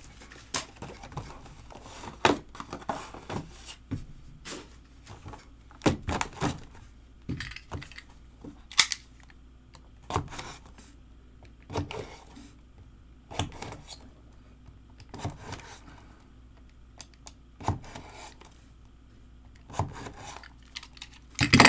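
Cardboard trading-card boxes being handled and set down on a table: scattered light knocks and taps every second or two, the sharpest about nine seconds in and a quick cluster near the end.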